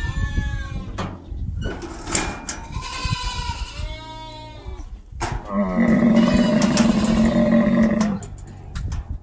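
Camels calling with repeated short bleating calls and one long, loud call from about 5.5 to 8 seconds in. A few sharp knocks and clanks come from a metal door being pushed open.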